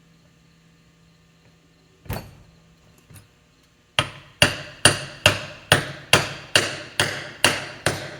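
Hammer striking metal: one knock, then a steady run of about ten ringing blows, roughly two and a half a second, starting about four seconds in.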